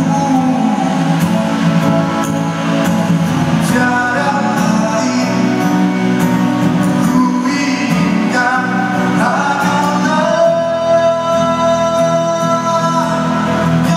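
A man singing into a microphone while playing an acoustic guitar, amplified through a stage PA; he holds a long note near the end.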